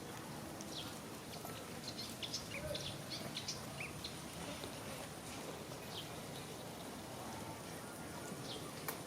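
Short high-pitched animal chirps, a quick run of them from about two to four seconds in and then single ones, over steady outdoor background noise, with a sharp click near the end.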